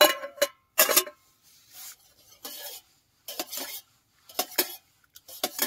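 A spoon clinking and scraping against a stainless steel cup as black coffee is stirred: two ringing clinks within the first second, then irregular short scrapes and taps.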